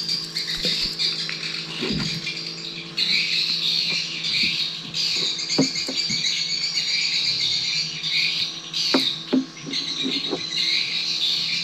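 A dense, steady high-pitched chorus of insects and birds, with a few short low knocks scattered through.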